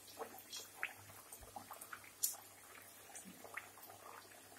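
Hot oil sizzling faintly in a steel kadhai as discs of mathri dough deep-fry, with scattered crackles and pops.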